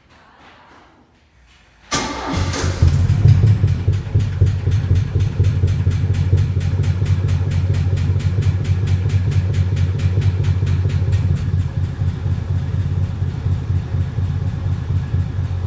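Chevrolet Opala's 151 four-cylinder engine starts about two seconds in and settles into a steady, evenly pulsing idle.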